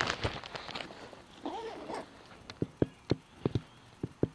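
Light, irregular clicks and knocks, about seven of them in the second half, after a brief squeak about a second and a half in; no engine is heard running.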